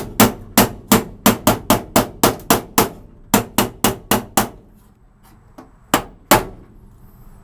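Hand hammer beating a sheet-steel floor patch into place, metal on metal. There is a fast run of sharp blows, about four or five a second, then a short pause, a second run, and two last separate blows.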